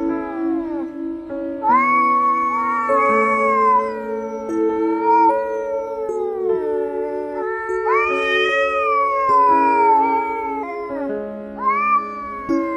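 Two cats caterwauling: long, drawn-out yowls that waver and slide down in pitch, one after another, with a new yowl starting about every two to three seconds. Background music of held notes plays underneath.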